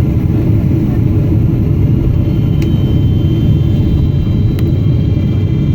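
Steady low rumble of a Boeing 777-300ER heard inside the passenger cabin, with two faint clicks partway through.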